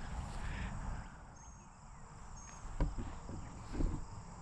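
Insects trilling steadily in a high, thin tone over a low rumble, with two soft knocks about three and four seconds in.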